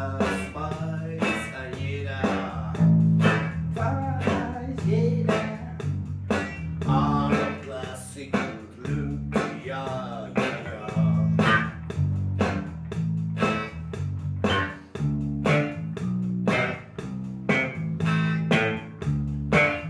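Electric bass guitar plucked with the fingers in a steady line of low notes, with a man singing over it.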